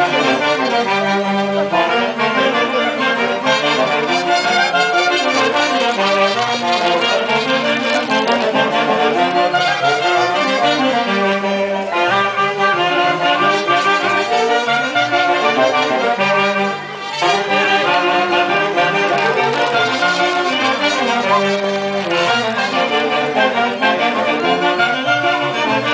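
Street brass band playing a tune, saxophones and trumpets carrying the melody over a drum. The music drops off for a moment about two-thirds of the way through, then picks up again.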